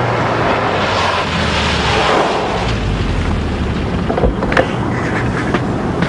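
A steady rumble of vehicle noise with a low hum underneath, and a couple of short knocks about four seconds in.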